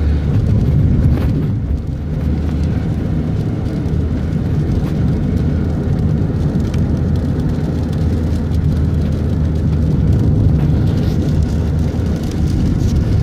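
Steady low rumble of a moving vehicle heard from inside the cabin while travelling in heavy rain.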